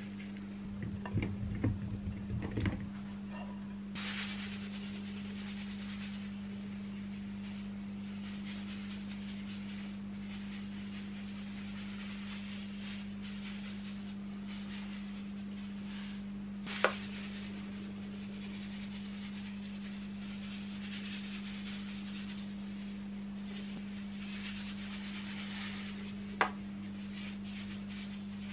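Granulated sugar pouring from a bag onto whole cherry plums in a plastic bowl, a steady grainy hiss that starts a few seconds in after some rustling and handling knocks. A low steady hum runs underneath, and two sharp clicks come in the second half.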